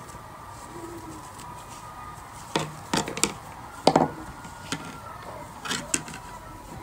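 Plastic pom-pom maker and yarn being handled on a tabletop: a few sharp clicks and knocks, the loudest about four seconds in, over a faint steady hum.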